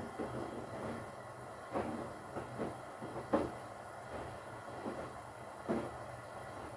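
Front-loading washing machine tumbling wet laundry in soapy water: irregular swishing thumps as the load drops and sloshes in the drum, about six in a few seconds, over a steady low motor hum.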